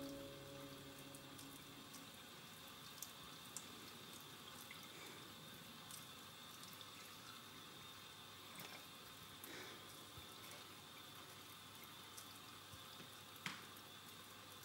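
Near silence: faint room hiss with a thin, steady high whine and a few scattered faint ticks. The last notes of music die away in the first second or so.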